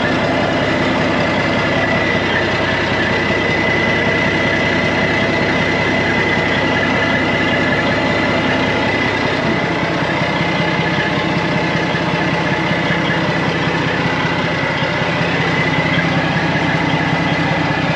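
Semi truck's diesel engine idling steadily, with a constant high whine over the engine's low running.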